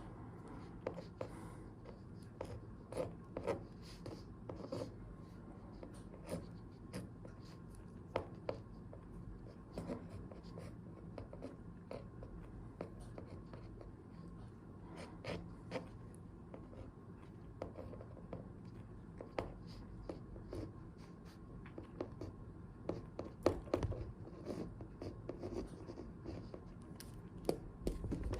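Handwriting on paper: irregular scratching strokes and light clicks and taps, over a low steady hum.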